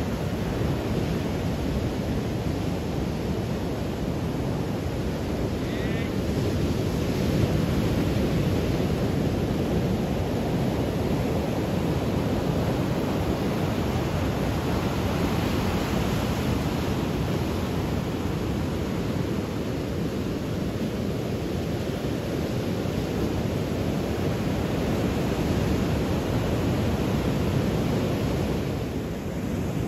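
Sea surf breaking and washing up the beach in a steady rush, with wind on the microphone.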